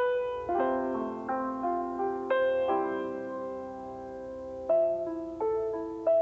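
Slow background piano music: chords and single notes struck and left to ring.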